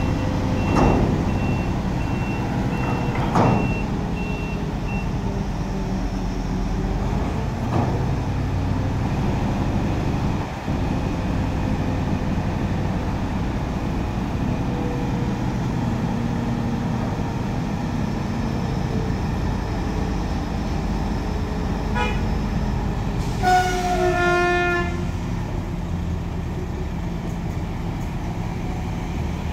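Heavy diesel engines of a truck-mounted crane and a tractor unit running steadily while the crane lifts a shipping container. A reversing alarm beeps steadily for the first five seconds, and a vehicle horn sounds once for about a second and a half near the end.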